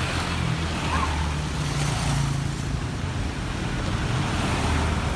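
Road traffic at the roadside: a vehicle engine's low drone that shifts up and down in pitch, over the hiss of passing traffic.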